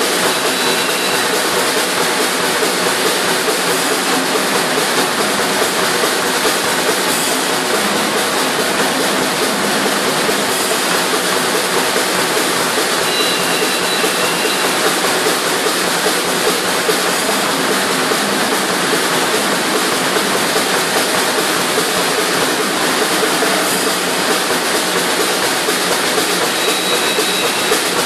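Percussion quartet playing a steady, dense drum texture on snare drums and pads that imitates a moving train: an even rushing, chugging sound without breaks.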